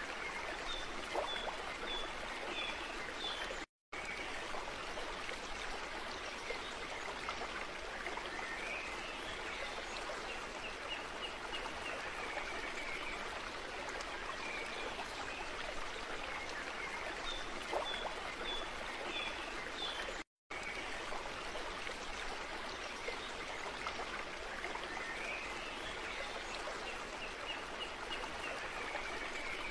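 Steady running water like a stream, with short high chirps over it, as a looping ambience track that briefly drops out twice and repeats.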